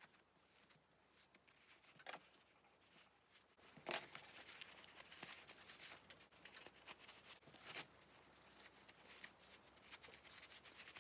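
Faint rustling and scraping of wadding and fabric as stuffing is pushed into a small pincushion with a chopstick, with scattered small clicks and one sharp tap about four seconds in.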